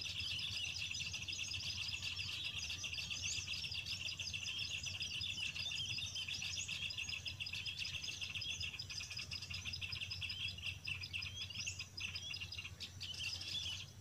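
Small-bird lure call played from an MP3 player: dense, continuous high chirping and twittering, with a few quick rising whistles.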